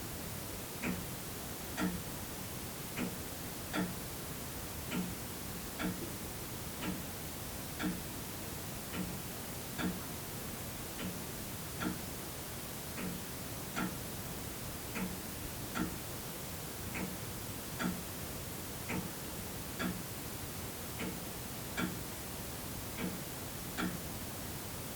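Old mechanical clock ticking steadily, about once a second, with an alternating tick and tock, over the steady hiss of a quiet room's tone.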